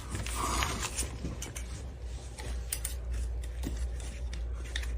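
Scattered light clicks and clinks of small hard objects being handled, at an irregular pace, over a low steady hum.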